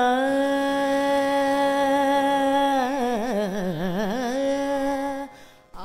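A single voice sings one long Carnatic-style note. It slides down into the note, holds it steady, then wavers through quick pitch oscillations (gamakas) in the middle. It settles back onto the note and stops about five seconds in.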